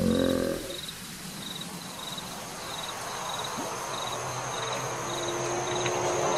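Night insects, crickets by their sound, chirping in short high pulses about twice a second over a steady hiss, with a thin steady high whine joining partway through. An eerie sliding tone dies away in the first second.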